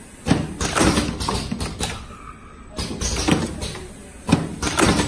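Vertical automatic cartoning machine running, its mechanism clattering and knocking in repeated bursts every second or two.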